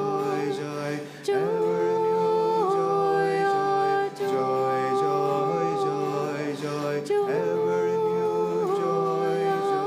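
Devotional chant sung in long held notes. The phrases break off briefly about a second in, at about four seconds and at about seven seconds, each time gliding to a new pitch.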